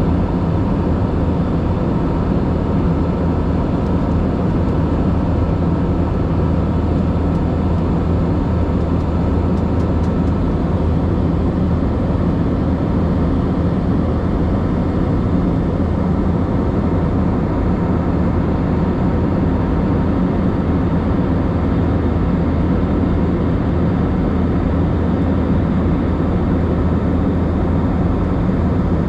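Steady in-flight cabin noise of a jet airliner: engine drone and rushing air heard inside the cabin, with a low hum and a faint steady whine over it.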